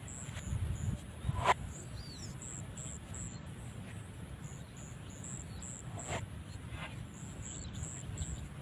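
Spotted dove giving a low, unusual call about half a second in, with a sharp click just after it and two fainter clicks later. Insects chirp in a steady pulsing pattern throughout.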